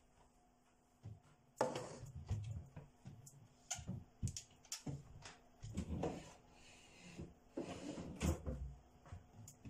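Kitchen handling noises: a series of knocks and clatters about once a second, with a stretch of rustling near the end, over a faint steady hum.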